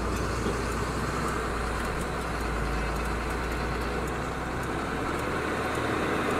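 Truck engine running and road noise heard from inside the cab as the truck turns slowly and pulls onto the road. A low hum under the rumble fades out about two-thirds of the way through.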